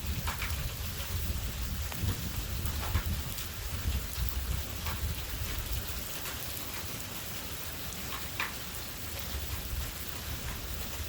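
Steady rain hissing during a severe thunderstorm, with a low rumble underneath and scattered sharp ticks of drops striking close to the microphone.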